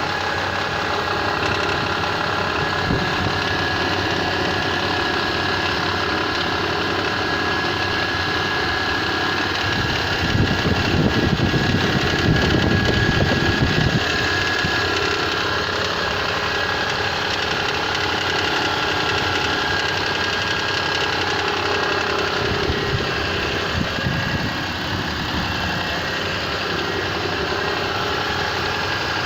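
Mitsubishi Pajero IV's 3.8-litre 6G75 V6 idling cold with a knock whose cause is unknown. The engine sound swells for a few seconds about ten seconds in, then settles back.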